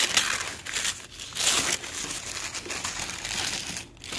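Brown packing paper crinkling and rustling in several bursts as hands dig through it inside a cardboard gift box.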